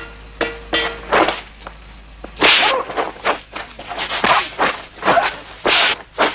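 Film fight sound effects: a rapid string of punch and kick hits and swishes, mixed with the fighters' grunts and yelps.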